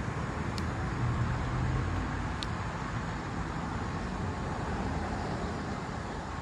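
Steady road traffic noise with a low rumble. Two faint sharp clicks come about half a second and two and a half seconds in.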